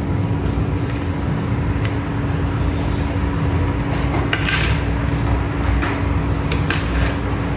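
Plastic keycaps clicking as they are handled and pressed onto a mechanical keyboard's switches: a few light, separate clacks, the sharpest about four and a half seconds in, over a steady low hum.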